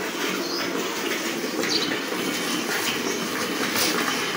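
Milk squirting into a pail as a cow is milked by hand, a steady liquid splashing and hissing.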